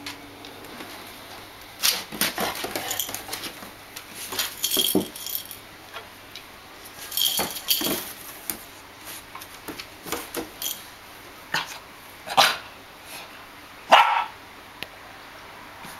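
Dogs barking during play. A pumi and a standard schnauzer give short barks in irregular bursts, and the loudest comes near the end.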